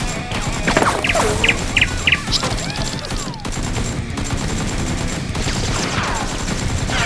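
Rapid gunfire sound effects, shots coming in quick succession over a steady low rumble.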